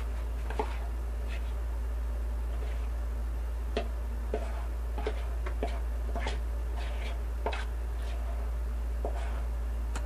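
Thick cake batter being scraped out of a bowl into a round aluminium cake tin: scattered light clicks and taps of the utensil and bowl against metal, over a steady low hum.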